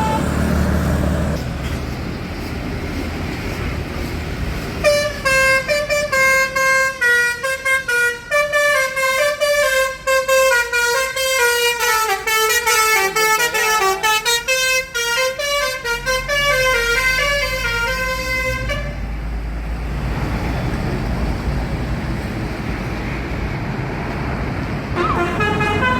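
Tour bus's telolet basuri musical horn playing a fast melody of short notes that step up and down in pitch, for about fourteen seconds before cutting off abruptly. Bus engine and traffic noise run underneath.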